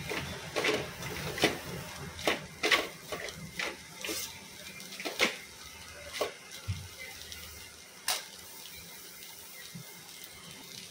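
Steel spoon scraping and clinking against a steel kadai as a dry anchovy and coconut stir-fry is stirred, a short stroke every half second or so, thinning out after about six seconds to one last clink.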